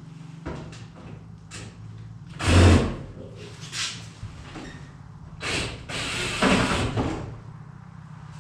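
Clunks, knocks and scraping from handling the heavy metal front panel of a Samsung front-load dryer during disassembly, with one loud thump about two and a half seconds in. A low steady hum runs underneath.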